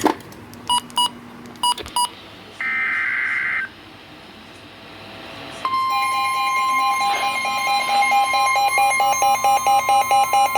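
An emergency alert comes over a weather radio: a few short electronic beeps, then a one-second burst of digital alert-header tones. About five and a half seconds in, a steady weather-radio warning alarm tone starts, with a rapid pulsing alarm beep over it. This marks the start of a new severe thunderstorm warning.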